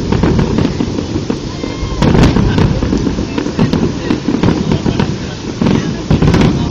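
Fireworks display: aerial shells bursting over a continuous low rumble, with sharp cracks and bangs about two seconds in and again a run near the end.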